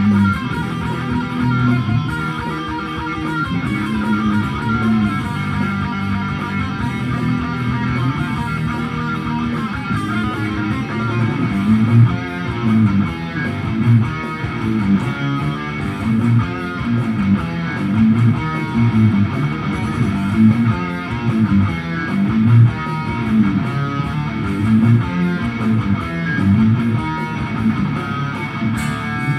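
Extended-range electric guitar playing a fast progressive-metal instrumental passage. From about twelve seconds in it settles into a low riff that repeats in a steady pattern.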